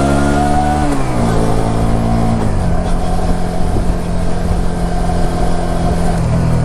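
Suzuki SV400S 400 cc V-twin motorcycle engine under way: the note rises under throttle, drops in two steps about one and two and a half seconds in, then holds a steady lower pitch.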